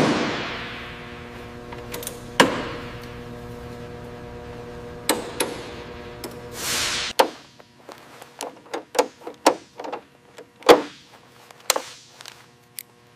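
Metal clanks and knocks in a large, echoing workshop, the first and loudest ringing on, over a steady low hum. About seven seconds in a short rising hiss ends as the hum cuts off, followed by a quick run of sharp clicks and taps.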